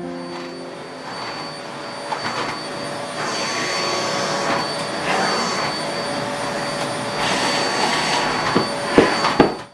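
Canister vacuum cleaner running steadily with a high whine as its floor head is pushed over a rug and wooden floor, with a few sharp knocks, most of them near the end.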